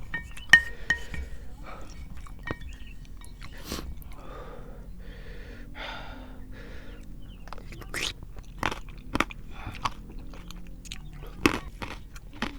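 Close-miked chewing of soupy instant noodles, with wet mouth sounds in the middle. Sharp clicks and a few short ringing clinks of utensil on bowl come near the start, and more clicks come later on.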